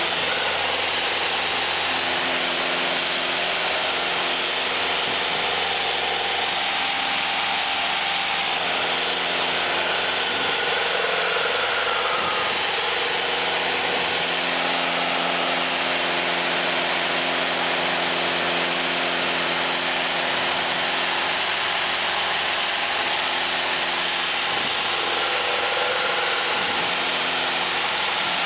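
Piper Warrior II's four-cylinder Lycoming O-320 engine and propeller running at climb power just after takeoff, heard inside the cabin as a steady drone with a constant hum of several tones over a thick rushing noise.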